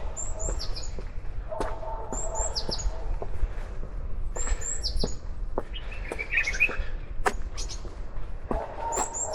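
Songbirds chirping: a short phrase of high, quick, falling notes repeats about every three seconds, with lower warbling notes between, over a steady low rumble.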